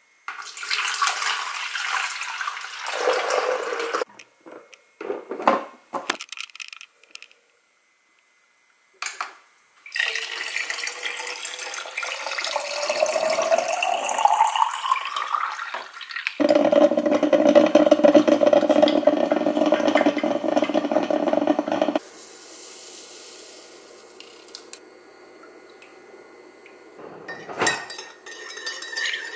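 Water poured into a drip coffee maker's reservoir, then a few clicks and knocks. Water is then poured into a plastic tumbler, the pitch rising as it fills, followed by an appliance's steady hum for about five seconds. Near the end a spoon clinks as it stirs a ceramic coffee mug.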